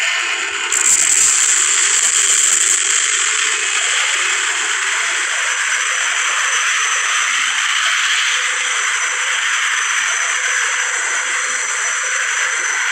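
Video game battle sound effects from a helicopter and gunship combat scene: a steady, noisy din of weapons fire, with a brighter, louder surge about a second in that lasts a couple of seconds.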